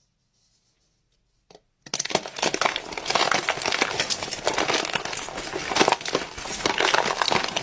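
Dense, irregular crinkling and crackling, made of many small sharp clicks, starting about two seconds in after near silence and one brief faint sound.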